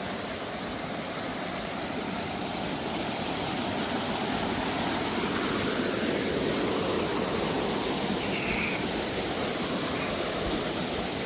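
Waterfall rushing: a steady, even roar of falling water, swelling a little midway.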